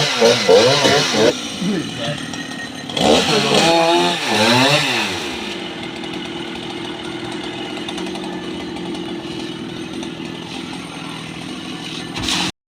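Two-stroke chainsaw revving, its pitch rising and falling in two spells in the first five seconds, then running more steadily and quietly until it cuts off abruptly near the end.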